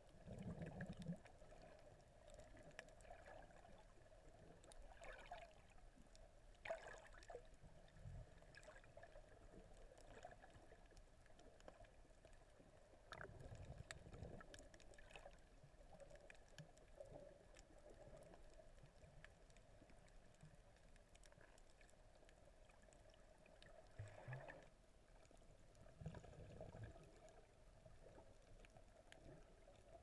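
Near silence under water: a faint steady hum with a few dull low thumps and scattered faint clicks, muffled as heard through the water.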